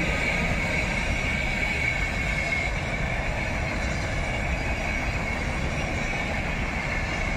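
PKP Intercity passenger coaches rolling past at speed: a steady rush of wheels on rail, with a thin high whine that is strongest for the first couple of seconds and then fades.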